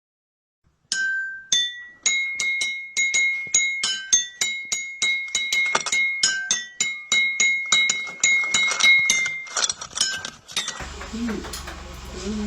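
A quick tune of high, bell-like struck metal notes, about two to three a second, that stops about ten seconds in, followed by a steady low hum.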